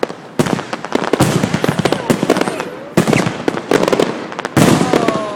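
Fireworks exploding, with three loud bursts about half a second, three seconds and four and a half seconds in, each followed by rapid crackling.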